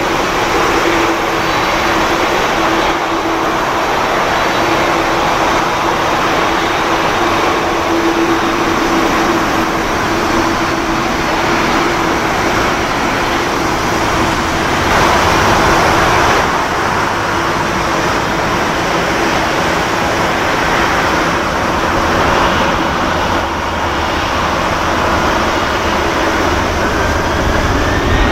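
Boeing 787-9 airliner's twin turbofan engines running at taxi power as it turns onto the runway: a steady hum over a broad jet rush. Near the end a whine rises in pitch as the engines begin to spool up for take-off.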